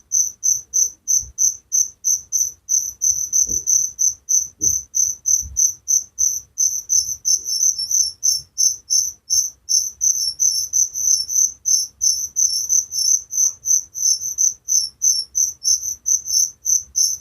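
Cricket chirping: a steady train of short, high chirps, about three or four a second.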